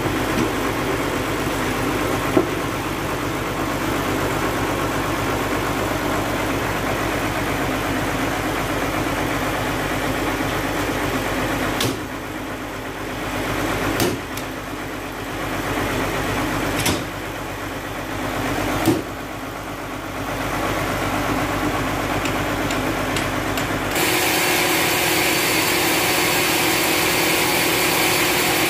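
Sawmill engine running steadily, with a few sharp metal knocks as the log clamps on the carriage are set. Near the end the running noise turns abruptly steadier and brighter.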